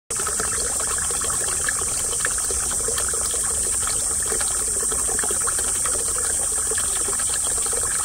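Spring water pouring steadily from a black plastic pipe and splashing into a small rock-lined pond; the flow is thinned by drought drying up the mountain stream that feeds it. Insects keep up a steady high-pitched drone underneath.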